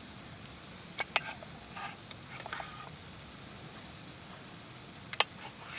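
A few sharp clicks and taps, two about a second in and one near the end, with soft rustling between, over a faint steady hiss: a knife and a stick of butter being handled while cooking on a camp stove.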